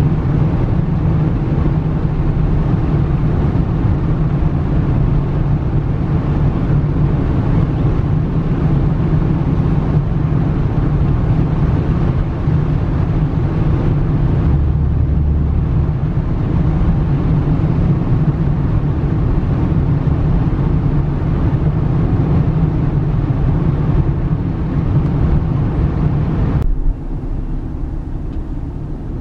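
Steady rumble of a car driving at highway speed, heard from inside the cabin: tyre and engine noise. The level steps down abruptly near the end.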